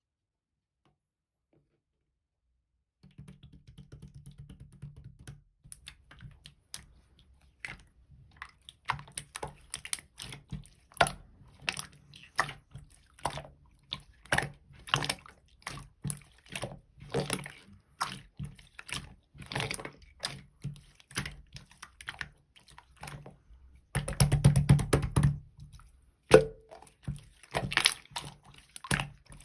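Clear slime being squished and pressed by hand, giving irregular wet clicks and pops as air bubbles burst. It starts after a few seconds of quiet and turns into a dense crackling flurry near the end.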